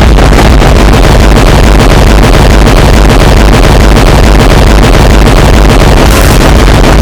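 Extremely loud, heavily distorted sound effect: a dense, clipped wall of noise with a heavy low rumble, held steady at full level.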